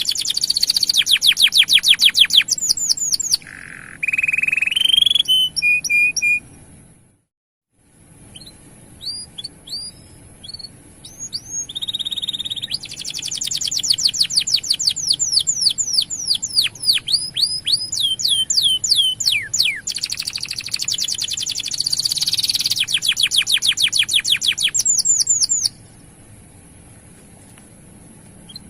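Male canary in full song: long rolling trills of fast, repeated sweeping notes. There is a brief gap of silence about seven seconds in, and the song thins to a few scattered notes near the end.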